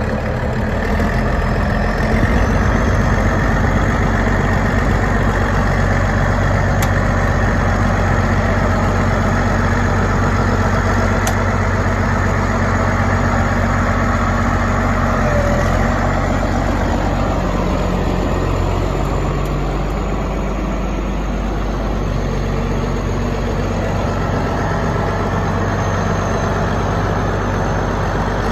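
Shantui SD16 crawler bulldozer's diesel engine running steadily, with a faint high whine above the engine note.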